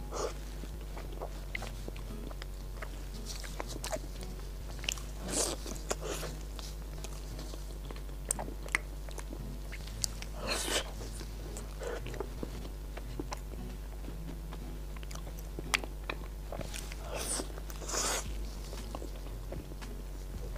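Close-miked mouth sounds of eating a large custard-filled snow-skin mochi (xue mei niang): soft bites, wet chewing and lip smacks, scattered irregularly with a few louder smacks, over a steady low hum.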